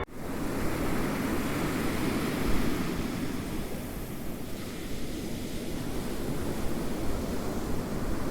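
Ocean surf: a continuous rushing wash of waves that cuts in abruptly, swells about two and a half seconds in, then eases and rolls on.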